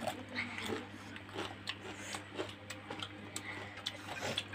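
Faint, scattered small clicks and taps of eating green mussels by hand: shells knocking together and fingers picking at plates, over a steady low hum.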